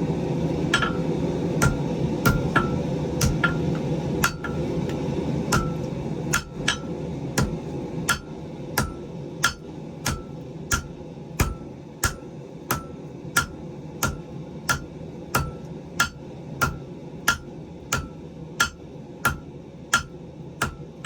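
Hammer blows on a hot wrought-iron billet on an anvil, upsetting the iron down on itself. There are about two blows a second in a steady rhythm, each with a short metallic ring.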